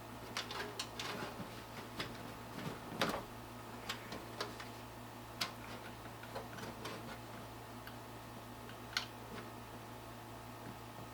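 Irregular light clicks and knocks of computer parts being handled while case fans are fitted into a PC case. The loudest knock comes about three seconds in, with single sharp clicks later on, over a steady low hum.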